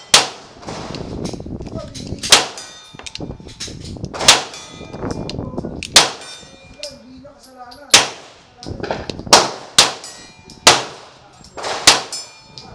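Springfield XD(M) 5.25 9mm pistol firing slow aimed shots, about eight in all, one and a half to two seconds apart. After several shots a steel target rings with a clang. Fainter bangs sound between the main shots.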